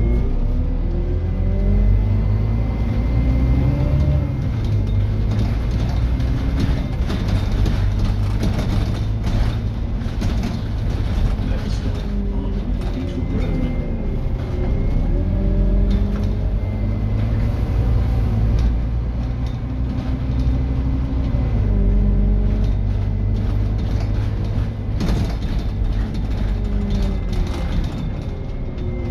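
Scania N230UD OmniDekka double-decker bus heard from the upper deck while under way: the five-cylinder diesel's revs climb and drop again and again as it pulls away and changes gear, over a low rumble. Occasional rattles from the bodywork.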